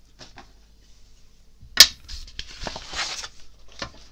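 A sharp tap about two seconds in, then a second of rustling as sheets of paper and cardstock are handled and slid onto a cutting mat, and a lighter tap near the end.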